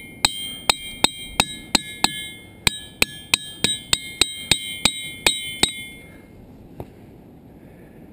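A ringing-rock diabase boulder struck quickly and repeatedly with a hammer, about three blows a second, each blow answered by a clear bell-like ring that hangs on between strikes. The striking stops about six seconds in.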